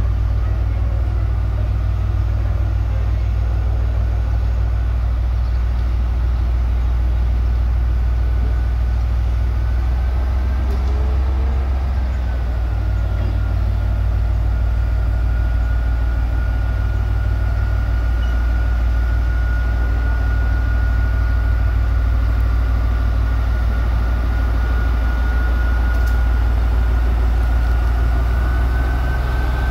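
Diesel engine of SRT shunting locomotive HAS 77 running as it slowly moves KiHa 183 series cars along the track: a loud, steady low rumble with a thin, steady high whine over it.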